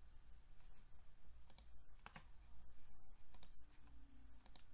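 Computer mouse clicking, several separate clicks at irregular intervals, over a faint steady low hum.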